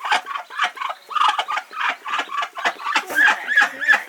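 Chickens clucking in a rapid run of short calls, several a second, turning higher and shriller near the end.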